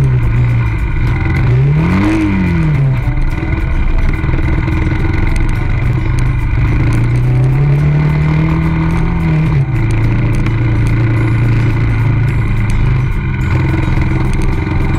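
Ssenda Duro 250 dual-sport motorcycle engine running under load on a rough track, heard from the bike. The revs rise and fall sharply about two seconds in, climb slowly again around seven to nine seconds, then drop. Steady clatter comes from the bike going over the rocky surface.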